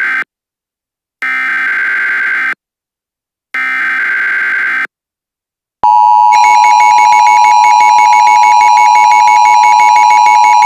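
Emergency Alert System SAME header: the end of one digital data burst, then two more, each about a second and a half long with a second's silence between. About six seconds in, a loud steady attention tone begins and holds. Together they announce the flash flood warning that follows.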